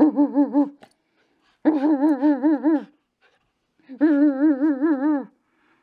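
A woman's voice warbling 'woo-woo-woo' hoots into a cardboard paper towel tube to play with a miniature schnauzer, three calls with the pitch wobbling up and down several times a second.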